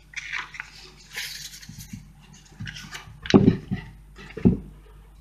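Paper rustling as a cut-out paper heart is handled and pressed onto a large board, followed by two dull thumps about a second apart as a hand pats it down.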